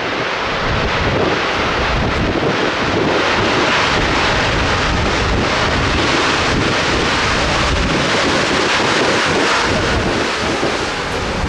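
Wind buffeting the microphone, with a steady rushing noise that swells a little through the middle.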